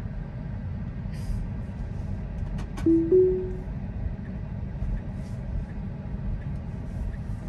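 Steady road and cabin rumble inside a moving Tesla. About three seconds in come two quick clicks and then a short two-note chime from the car, the second note slightly higher than the first.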